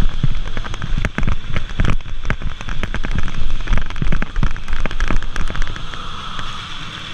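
Airsoft guns firing: a dense, irregular string of sharp cracks and snaps, thinning out after about five and a half seconds.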